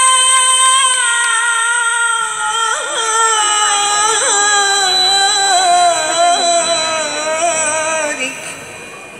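A solo voice singing an unaccompanied Arabic shalawat phrase over a PA system. It is one long melismatic line: a held note that slowly slides downward with small vocal turns and fades out near the end.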